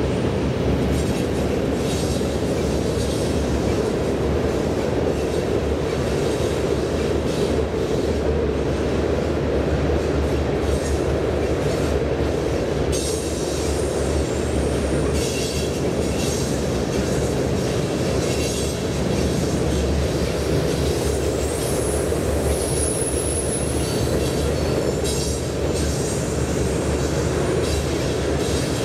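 Freight train tank cars rolling across a steel trestle: a steady rumble of wheels on rail with many clicks from rail joints, and a brief thin high wheel squeal about three-quarters of the way through.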